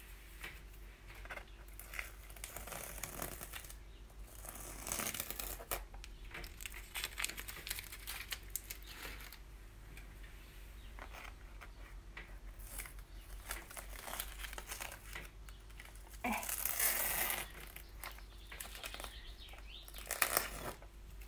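Soft, irregular rustling and crinkling of hands handling materials, louder for a moment about four to six seconds in and again around sixteen seconds in, over a faint steady hum.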